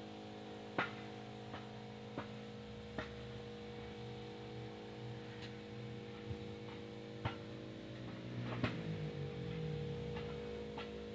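A steady hum with several sharp clicks scattered at irregular intervals. A faint wavering low sound rises and falls about eight seconds in.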